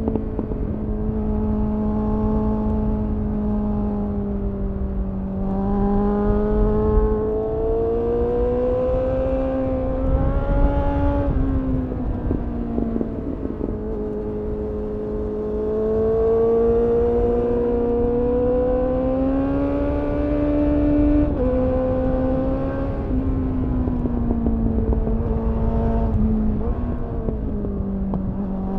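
2001 Suzuki GSF 600 Bandit's inline-four engine through a GPR Furore Nero aftermarket exhaust, heard from on board while riding. The engine note climbs under throttle and falls back again and again through the bends, with a sudden drop about twenty-one seconds in, over steady wind rumble.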